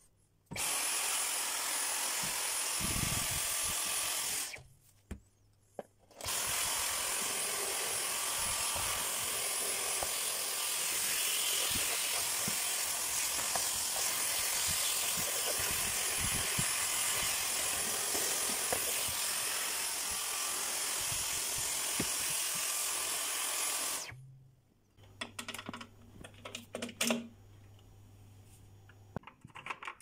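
Dyson cordless stick vacuum running with a crevice tool: a steady, high-pitched motor whir. It runs for about four seconds, stops for about two, then runs again for about eighteen seconds before switching off. A few handling clicks and knocks follow.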